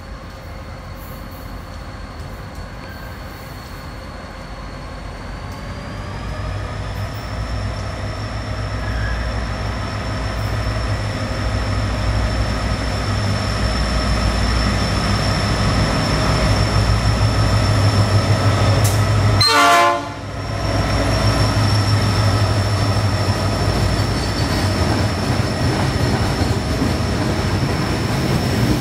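General Motors GT22CW diesel-electric locomotive running as it approaches and passes close by with a container train. Its deep engine rumble grows steadily louder, with a brief sharp sound about twenty seconds in.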